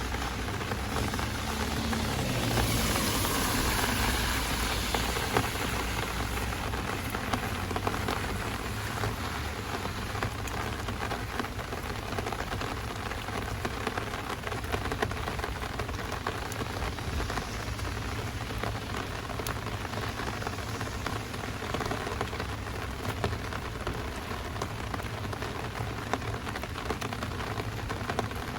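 Heavy rain falling steadily, with many close drops ticking. A louder swell of hiss rises and fades about two to six seconds in.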